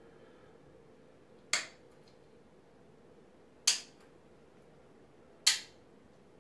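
Three sharp plastic clicks, about two seconds apart, from pill bottles and their caps being handled.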